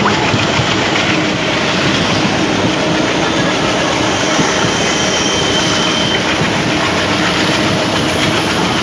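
Running noise of a passenger train's coach wheels on the rails, heard at the open coach door as the train moves: a steady, even din. A faint thin high-pitched tone comes in about three and a half seconds in and lasts a couple of seconds.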